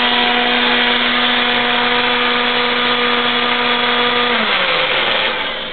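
Old countertop blender running steadily with a motor whine, blending spinach with apple juice and water. About four and a half seconds in it is switched off and the whine falls in pitch as the motor spins down.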